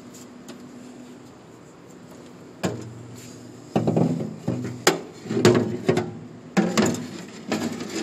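An empty 5-gallon plastic water jug bumping and scraping against the stainless-steel filling compartment of a water vending machine as it is pushed into place. There are irregular knocks and thuds from about a third of the way in, over a low steady hum.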